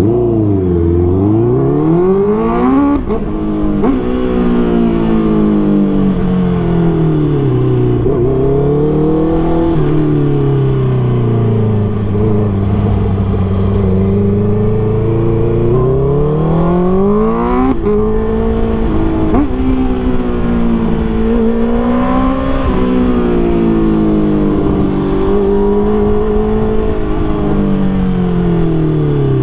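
Honda CBR650R inline-four engine running through a MIVV MK3 full exhaust system while riding. The revs repeatedly climb and fall as the bike accelerates, changes gear and slows, with a sharp drop in revs about 18 seconds in and a steady low-rev stretch in the middle.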